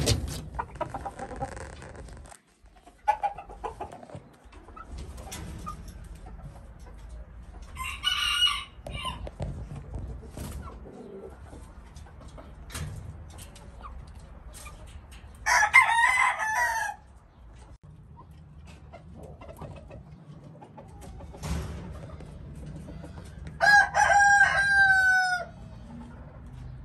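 Giro roosters crowing, three calls spread through the stretch. The last, near the end, is a long crow that falls in pitch at its close. A brief sharp clatter comes at the very start.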